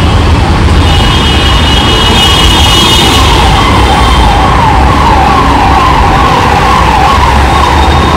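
Emergency vehicle siren yelping: a quick repeating up-and-down wail, clearest in the second half, over a steady low rumble of traffic.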